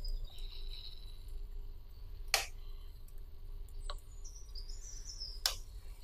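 Faint birds chirping with short, high calls, over a low steady hum, with two sharp clicks: one a little before halfway and one near the end.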